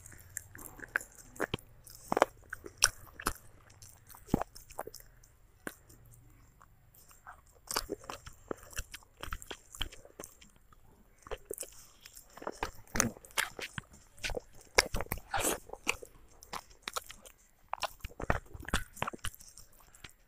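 A child chewing and biting broiler chicken and rice, close-miked: irregular wet clicks and smacks of chewing, in clusters with short pauses between mouthfuls.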